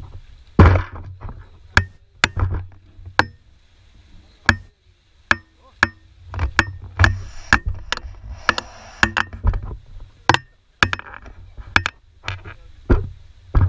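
A long run of sharp, irregular clicks and knocks, about two a second, with a short hiss partway through.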